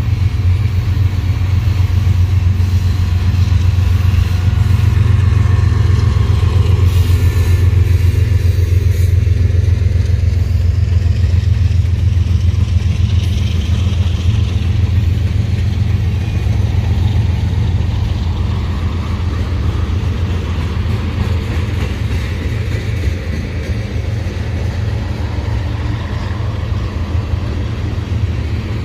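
Manifest freight train rolling past at close range: a steady low rumble of steel wheels on rail, loudest in the first third as a mid-train diesel locomotive goes by, then continuing as tank cars and hoppers pass and easing slightly toward the end.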